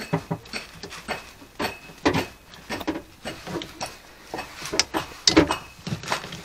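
Irregular clicks, taps and knocks of hand work on a Lexus RX300's plastic trim and power-antenna fittings while its wiring connectors are unclipped with a screwdriver.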